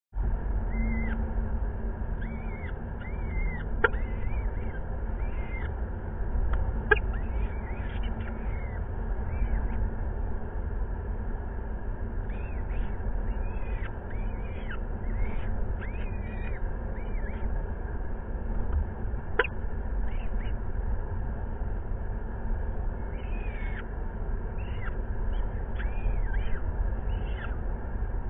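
Peregrine falcon chicks giving high, thin begging calls in bursts of short arched notes while being fed, over a steady low rumble. A few sharp clicks come through.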